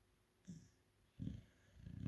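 Chow Chow dog snoring in its sleep: two short, rough breaths about half a second and just over a second in, then a longer snore building near the end.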